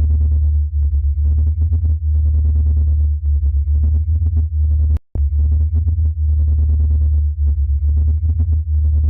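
Space-audio sonification presented as the sound of Saturn's moon Dione: a deep, steady, synthetic-sounding drone with a dense flutter of rapid pulses over it. It cuts out for a moment about five seconds in, then starts again.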